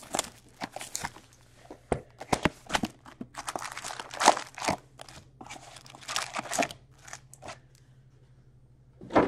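Plastic shrink-wrap, cardboard and foil card packs crinkling and rustling by hand as a box of 2022-23 Upper Deck Series One hockey cards is unwrapped and its packs are pulled out and stacked. The rustling is irregular and dies down about two seconds before the end, then one short sharp sound.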